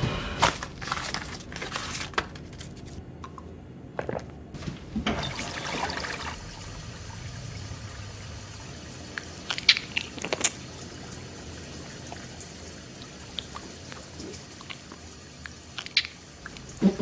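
Small handling sounds in a kitchen: a few sharp clicks and taps, a short rush like water pouring about five seconds in, and faint crunching.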